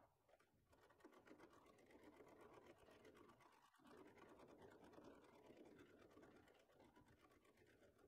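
Near silence.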